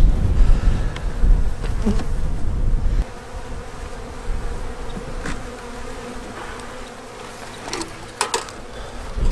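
Honey bees buzzing steadily around an open hive, with a low rumble for the first three seconds that stops suddenly and a few sharp knocks near the end.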